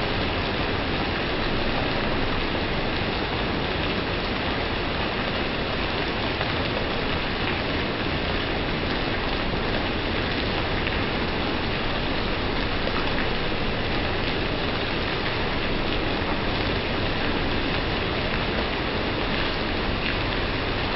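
Rain falling steadily onto wet paving, an even hiss that neither builds nor stops.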